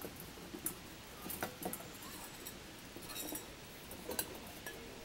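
Faint scattered taps and clicks of puppies moving about on stone paving and at metal water bowls, a handful of separate ticks over a quiet background.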